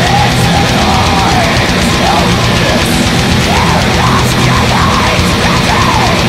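Black metal music: fast, steady drumming under a dense wall of distorted guitars, with a high melody line rising and falling above it that grows busier in the second half.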